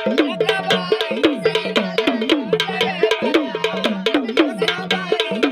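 Sambal drums played fast: rapid stick strokes with a deep drum note that slides down in pitch about once a second, over a steady higher droning tone.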